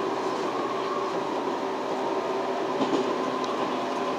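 JNR 115 series electric multiple unit running, heard from inside the driver's cab: a steady running rumble with a constant hum and a couple of faint clicks about three seconds in.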